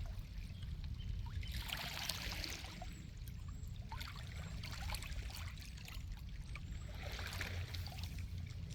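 Water washing at the shoreline, swelling twice, about two seconds in and again near seven seconds, over a steady low rumble.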